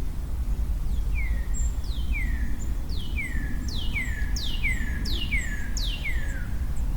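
A songbird singing a phrase of repeated, sharply falling whistled notes, about eight in a row, over a steady low rumble.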